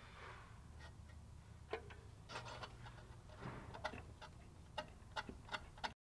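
Faint metallic clicks and ticks at an irregular pace, with some rustling, from the steel clamp bracket and its bolts being handled and fitted by hand against an exhaust manifold. The sound cuts off suddenly near the end.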